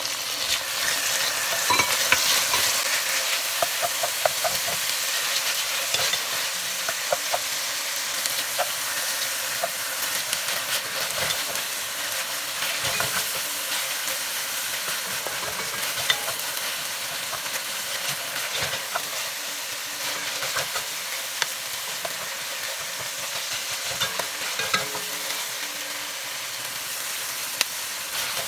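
Chopped tomatoes, onions and garlic sizzling in hot oil in an enamelled pot, stirred with a wooden spoon that scrapes and taps against the pot with many small clicks. The sizzle is loudest in the first few seconds, just after the tomatoes go in, then settles to a steady frying hiss.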